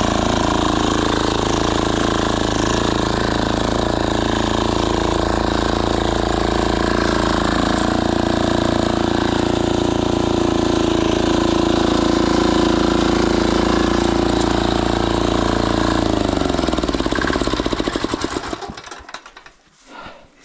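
Diesel walk-behind tractor engine running steadily. About 16 seconds in it is shut off: the pitch falls and the firing strokes slow until it stops, about three seconds later.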